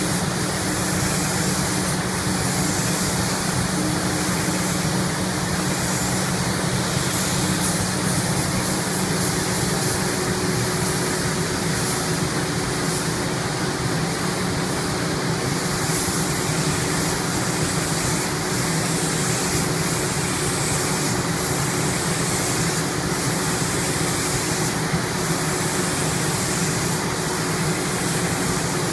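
Steady hum and rushing air of spray-painting equipment, a constant machine drone under an even hiss, with faint flickers of air in the high range that come and go.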